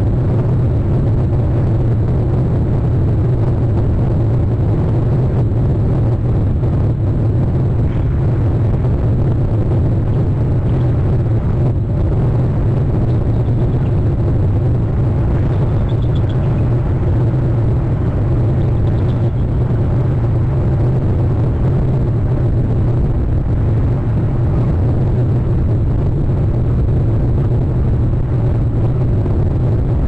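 Steady, loud low rumble on an outdoor nest-cam microphone, unchanging throughout, with a couple of faint high calls about halfway through.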